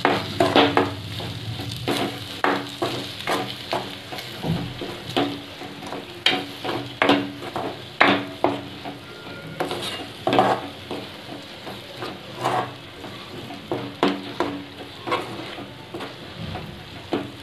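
Steel spoon scraping and knocking against a metal kadhai as a thick spice paste is stirred, in uneven strokes about one or two a second. A faint sizzle of the paste frying in its oil runs underneath.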